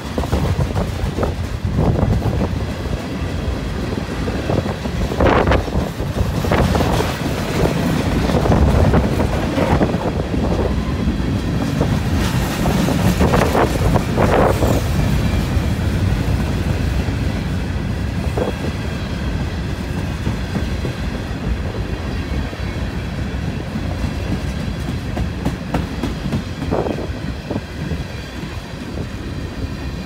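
Freight cars of a long mixed freight train rolling past: lumber flatcars, covered hoppers and tank cars. Their wheels give a steady rumble and clickety-clack over the rail joints, broken by a few brief sharper flashes of wheel noise.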